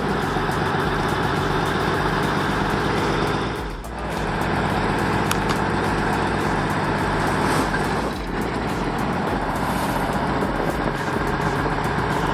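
An M923 6x6 military truck's diesel engine running steadily while pitted against a tree stump, with two brief drops in level about four and eight seconds in.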